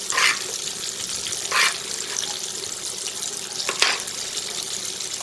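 Hot oil sizzling steadily in a screened pot as a fish head deep-fries, with three short scrapes of a metal spoon scooping fish-fry breading in a metal baking pan.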